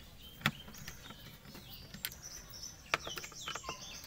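A few sharp clicks and light scrapes of a screwdriver working the mounting screws of an induction cooktop's heating coil. Birds chirp repeatedly in the background, more often in the second half.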